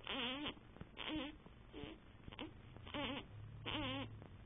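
Baby fussing: about five short, wavering cries in a row, each under half a second.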